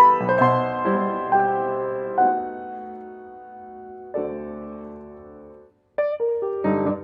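Solo piano music accompanying a silent film. A run of notes gives way to sustained chords that fade slowly. After a brief break of silence near the end, quicker detached notes start up again.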